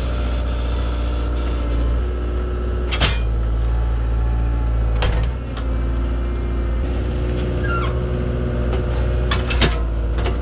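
Skid steer engine running steadily under hydraulic load, with a few sharp knocks about three and five seconds in and twice more near the end.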